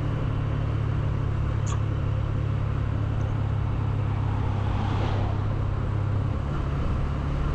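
Honda CB125F's 125cc single-cylinder engine running at a steady speed while riding, under a steady rush of wind and road noise.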